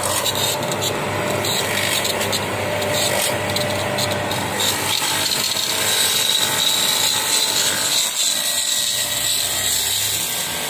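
Electric pressure washer running steadily: a continuous motor-and-pump hum under a hiss.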